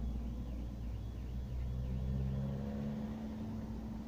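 Car engines idling with a steady low hum, one rising slightly in pitch about halfway through. A faint wavering high tone runs over the first half.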